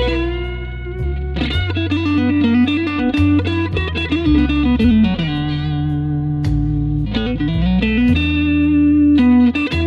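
Electric blues lead on a Fender Stratocaster played through a BOSS GT-100 multi-effects unit on its combo-amp sound, with string bends and a long held note about five to seven seconds in. A backing track with a bass line and drums plays underneath.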